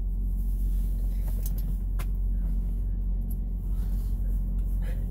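Semi truck's diesel engine idling, a steady low hum heard inside the cab, with a few brief clicks and faint rustling of clothing as a sweater is pulled off.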